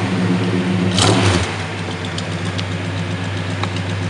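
1969 Cadillac Calais's 472 cubic-inch (7.7-litre) V8 idling cold through a dual Magnaflow exhaust, smoking heavily. It runs louder with a brief surge about a second in, then settles to a steady idle.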